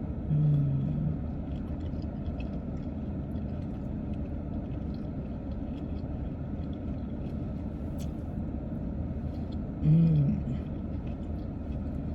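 Steady low rumble of a car's interior, the engine idling, while someone eats. A short low hum from a voice comes just after the start and again about ten seconds in, with faint small clicks of eating.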